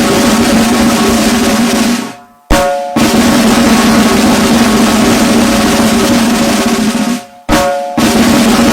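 Loud, continuous snare drum roll that breaks off twice, about two seconds in and again near the end. Each break holds a single sharp, ringing strike, and the roll resumes about half a second later.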